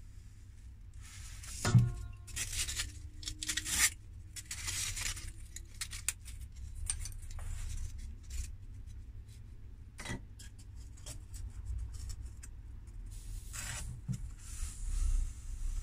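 Polystyrene foam blocks being handled: scratchy rubbing and squeaking of foam against foam and the cutter board, with a sharp knock about two seconds in and lighter knocks around ten and fourteen seconds, over a steady low hum.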